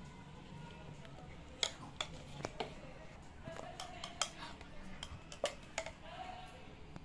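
Metal spoon clinking and tapping against aluminium pans and bowls while thick curd is spooned out: a scatter of sharp metallic clicks. The loudest come about a second and a half in, around four seconds and near five and a half seconds.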